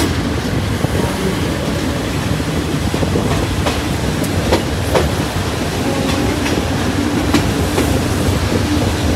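Ordinary-class passenger train running along the track, heard from inside a carriage: a steady loud rumble of wheels on rails, broken now and then by a sharp click.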